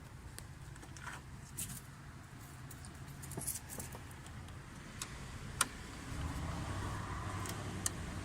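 Flathead screwdriver turning a hose clamp on a charge pipe coupler: scattered small metallic clicks and scrapes. A low rumble runs under them and gets louder about six seconds in.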